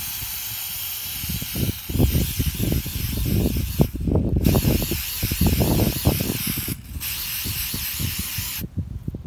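Aerosol spray-paint can spraying in three long hisses, the first two broken by short pauses about four and seven seconds in, the last stopping shortly before the end. Irregular low knocks and rustling of handling close to the microphone run underneath.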